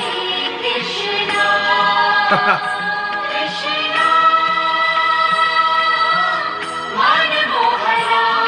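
A group of voices singing a devotional chant in long, held notes that slide from one pitch to the next.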